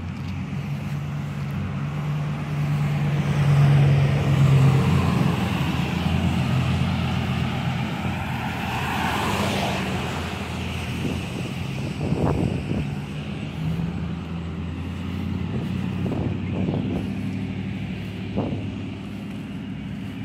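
A motor vehicle's engine hums steadily, loudest a few seconds in. A car passes on the wet road about nine seconds in, its tyre hiss swelling and fading. A few short knocks come in the second half.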